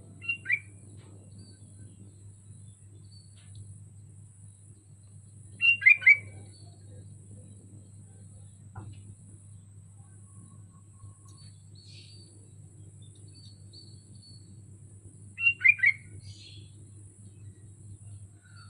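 Sooty-headed bulbul singing three short, loud phrases of a few quick falling notes each: one near the start, one about six seconds in, and one near the end.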